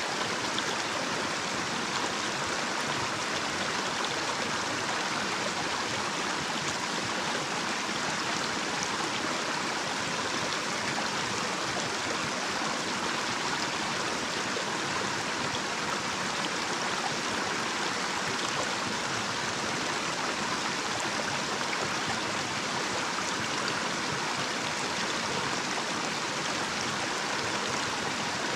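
Small, shallow natural stream running over a little cascade: a steady, even rush of flowing water.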